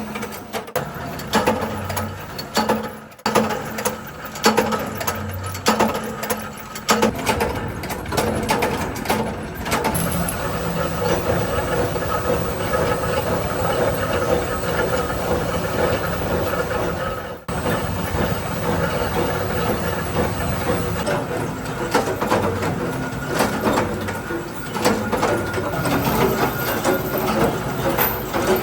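Workshop machinery running with a dense, rapid clatter of small knocks and rattles. The sound changes abruptly about 3 seconds and about 17 seconds in.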